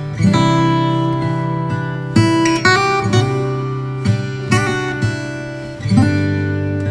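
Instrumental background music: chords and single notes struck about once or twice a second and left to ring.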